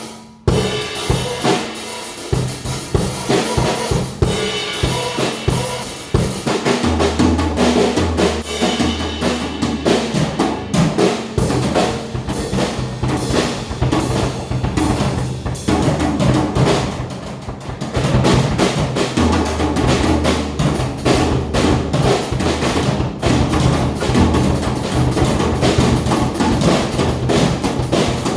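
Drum kit played continuously in a busy groove, with bass drum and snare strikes throughout. Steady low bass notes are heard under it twice, as from a backing track.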